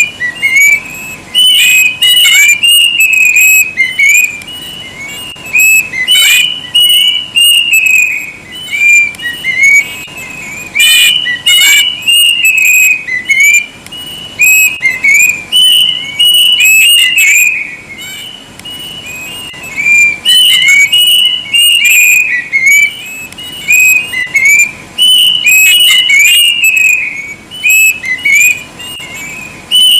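Kedasih (plaintive cuckoo) singing: a loud, shrill whistled song in repeated bouts of quick short notes, with brief pauses between bouts.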